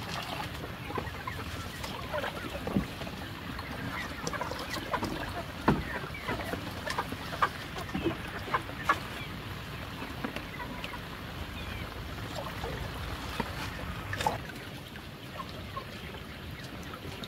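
Chickens clucking in short calls, with scattered sharp knocks and scrapes against wooden boards over a steady background hiss.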